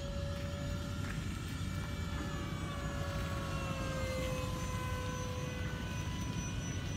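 Twin 70mm electric ducted fans of an FMS A-10 model jet whining in flight overhead. The whine is steady, then drops in pitch about four seconds in as the jet passes.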